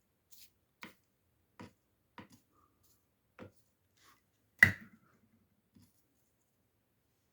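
A string of sharp clicks and light knocks at irregular intervals, with one much louder knock about four and a half seconds in followed by a brief rattle: things being picked up and gathered by hand.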